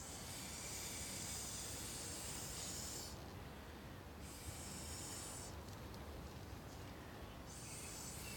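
Breath blown through a plastic drinking straw onto wet acrylic pour paint, pushing it across the canvas. It comes as three hissing puffs, the first about three seconds long.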